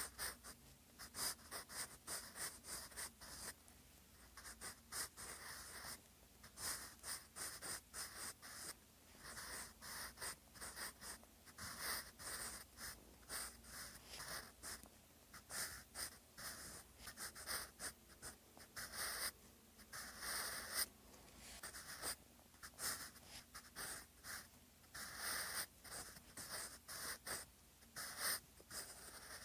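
Graphite pencil writing by hand on lined paper: short, irregular scratching strokes with brief pauses between them.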